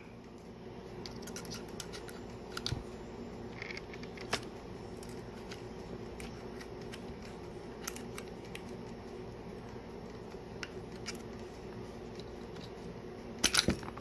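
Small scattered clicks and taps of the polymer frame and metal parts of a field-stripped Glock 17 Gen 5 being worked by hand to free a tight locking block, over a steady low hum. A louder quick cluster of clicks comes near the end as the block comes loose.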